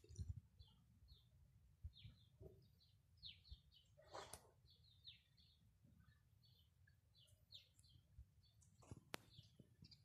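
Near silence with faint, scattered short bird chirps throughout. A brief rustle about four seconds in and a sharp click near the end.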